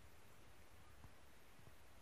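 Near silence: faint steady background hum and hiss, with two faint short ticks about a second and a second and a half in.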